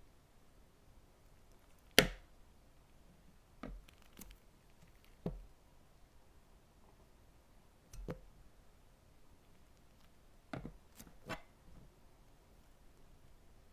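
Short, sharp crunchy cuts or presses into a soft play material, about seven of them with pauses between; the one about two seconds in is the loudest.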